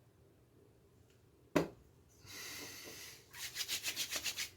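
Skin Bracer menthol aftershave being put on a freshly shaved face. A sharp click comes about a second and a half in, then a brief rubbing hiss, then a quick run of light pats of hands on the face, about six a second.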